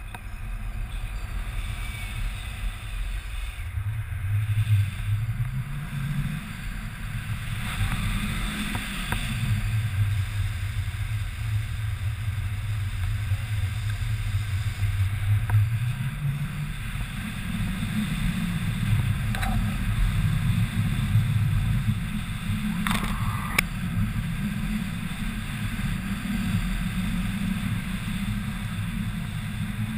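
Wind rushing over the camera microphone in a tandem paraglider's flight: a steady low rumble that swells a few times and grows stronger in the second half. A brief knock sounds about two-thirds of the way through.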